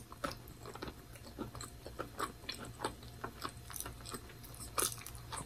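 A person chewing a bacon and grape jelly sandwich on toast: faint, irregular wet clicks and smacks of the mouth, one a little louder near the end.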